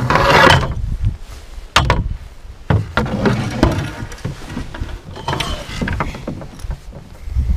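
Wooden paddle and landing-net handle knocking and scraping against an aluminum canoe, a few sharp clunks spread through, after a splash of water as the paddle comes out at the start.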